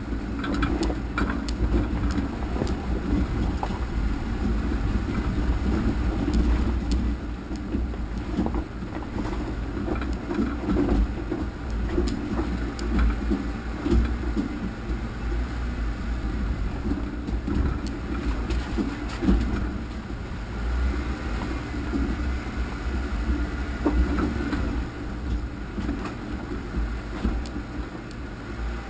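An off-road vehicle crawls over a rocky dirt trail, its engine a steady low rumble. Frequent knocks and rattles come from rocks under the tyres and from the jolting vehicle.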